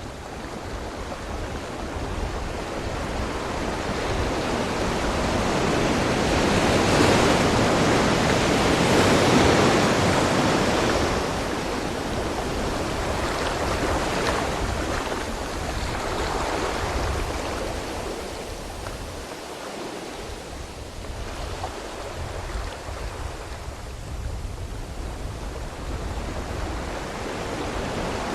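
Ocean waves breaking and washing ashore. One large wave swells and crashes about a third of the way in, then the wash ebbs, followed by smaller surges.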